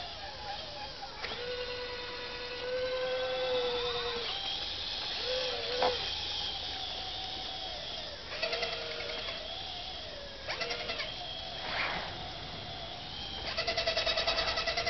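Radio-controlled model Cat D6 bulldozer driving over rough dirt: a steady, pitched whine from its drive that shifts up and down in pitch, with a few short, fast-pulsing sounds, the longest near the end.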